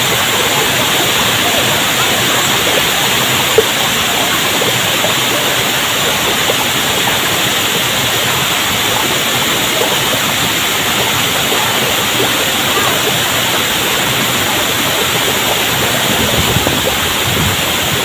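Steady rush of a waterfall, many thin streams falling over mossy rock ledges into a pool, with one brief sharp tap about three and a half seconds in.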